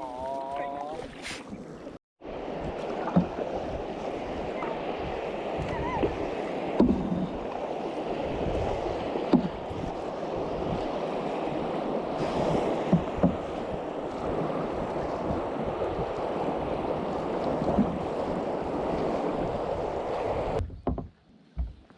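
Steady rush of river water around a moving kayak, with occasional short knocks.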